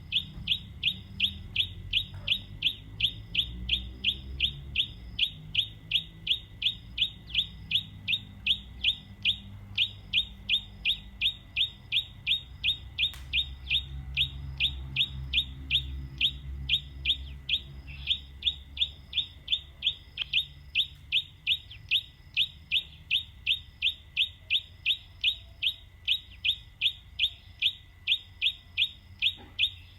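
A bird calling, short high chirps repeated very evenly at about three a second, with a low rumble underneath.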